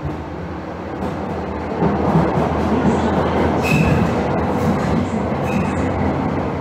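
Running sound of a 1977 KVB B100S light-rail car heard from its cab: 750 V DC traction motors with camshaft control, plus wheels on the rails. It grows louder about two seconds in as the car picks up, with two brief high squeaks later on.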